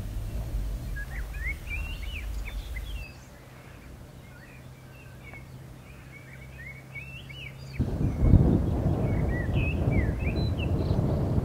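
Small birds chirping and calling with many short quick notes throughout, over wind blowing on the microphone. The low wind rumble eases about three seconds in and comes back heavier and loudest about two-thirds of the way through.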